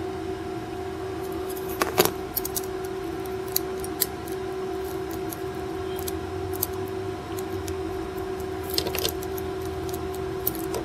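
Scattered small sharp clicks and metallic ticks as a desoldered chip's legs are levered and snapped free of a circuit board with a small tool, the loudest about two seconds in and again near the end. A steady hum runs underneath.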